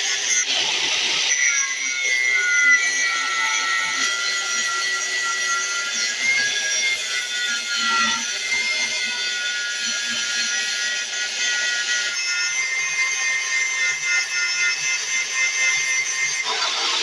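Electric angle grinder running, its abrasive disc grinding the steel jaw of blacksmith tongs and throwing sparks. A steady high whine from the grinder sits over the hiss of the disc on metal, and the tone changes about twelve seconds in.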